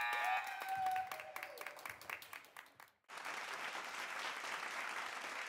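A gym scoreboard buzzer cuts off just after the start, followed by a few short squeaks and scattered knocks that fade away. After an abrupt cut about three seconds in, steady applause.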